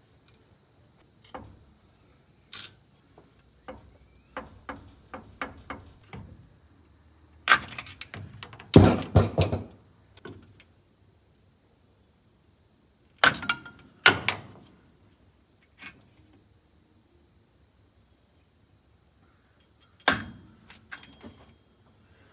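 Metal hand tools clinking and clanking against the belt pulleys and jackshaft coupling of a Massey Ferguson 1805 tractor's hydraulic pump drive. A run of light taps comes first, then a loud metallic clatter about nine seconds in, then a few single clanks. A steady high-pitched whine runs underneath.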